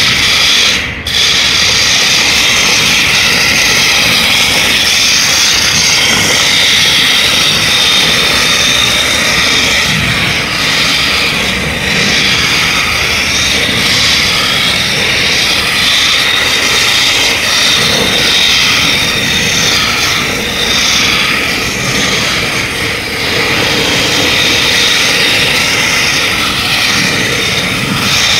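Mecanum-wheel robot drive train driving: its electric drive motors and gearboxes give a steady high whine.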